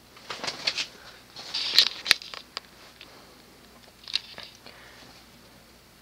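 Several sharp clicks and knocks, the loudest about two seconds in, then a faint steady sound as a Hampton Bay Patriot ceiling fan with a 188 mm Alaska spinner motor starts turning on low speed.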